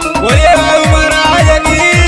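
Instrumental passage of a devotional bhajan: a held melody line over a steady beat of deep drum hits that drop in pitch.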